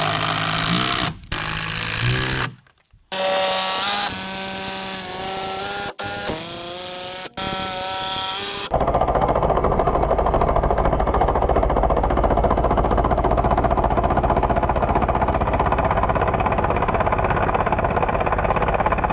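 Power drill driving construction screws into timber: several short bursts of motor whine rising and falling in pitch, broken by abrupt cuts. About nine seconds in, a long steady run of fast hammering rattle begins and stops sharply near the end.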